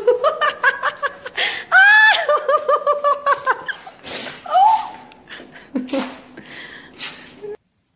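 A person laughing hard, in runs of quick, high-pitched ha-ha pulses with a rising squeal about two seconds in; it cuts off suddenly near the end.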